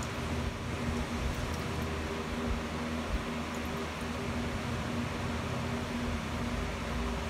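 Used motor oil draining from a 5.7 L Hemi's oil pan into a plastic catch pan, the stream thinning to a trickle, under a steady mechanical hum.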